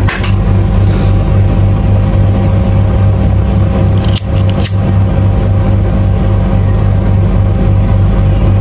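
A loud, steady low hum throughout, over which scissors snip the fishing line's tag ends at the start, and a pocket lighter is struck twice a little after four seconds in, to singe the ends of the knot.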